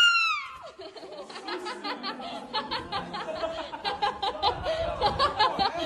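A short, shrill scream that falls in pitch right at the start, followed by people laughing and chattering.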